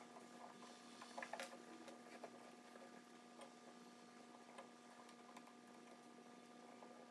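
Near silence: room tone with a steady faint hum and a few scattered faint light clicks and ticks.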